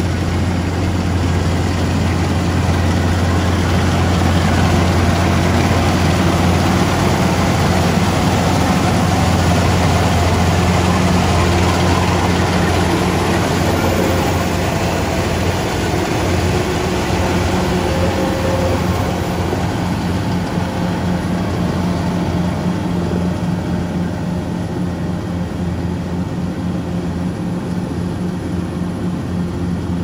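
Kubota DC-105X rice combine harvester running steadily while harvesting: a constant low diesel drone with a dense noise of working machinery over it, easing off a little over the last ten seconds.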